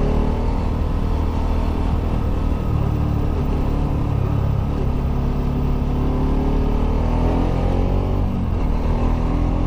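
Kawasaki Rouser RS200's single-cylinder engine running on stock exhaust while the motorcycle is ridden, its pitch drifting with the throttle and rising near the end.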